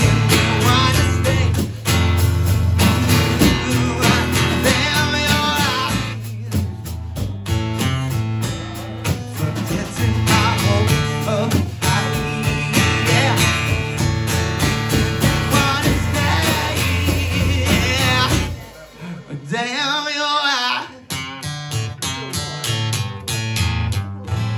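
Live band music: a man sings over a strummed acoustic guitar, with a drummer playing snare and bass drum. About three-quarters through, the beat drops out for a couple of seconds and the voice carries on nearly alone before the band comes back in.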